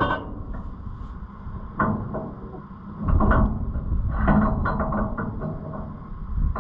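Metal knocks and clanks from an Oliver 7300 combine's thresher drive pulley and belt as a bar is levered against it to roll the new belt on, a few scattered strokes with a cluster in the second half, over a steady low rumble.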